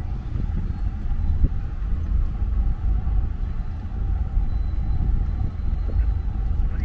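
Steady low rumble of an SUV creeping forward, engine and road noise heard from inside the cab.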